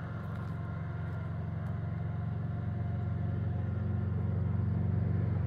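Low engine rumble of a fire truck approaching along the highway, growing steadily louder. A faint siren tone winding down fades out in the first second or so.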